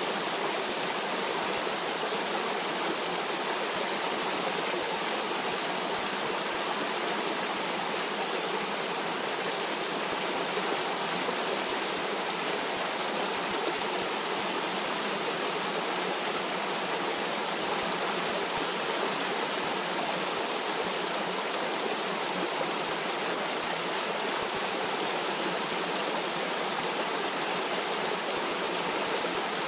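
Stream water flowing in a steady, even rush with no change in level.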